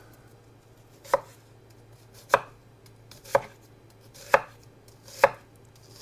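Kitchen knife chopping yellow onions: five slow, sharp strokes about a second apart.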